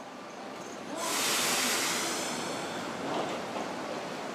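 A sudden hiss of air from the Iyotetsu 5000 series tram standing at the platform, starting about a second in and slowly dying away, typical of compressed air being vented from the tram before it moves off.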